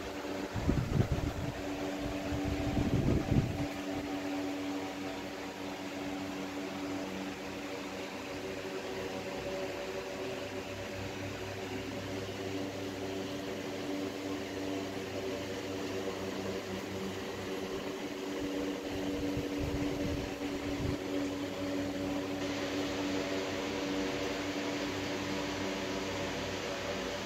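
Steady machine hum, like a fan or small motor running, holding several low tones. Short low rumbles break in twice near the start and again about twenty seconds in.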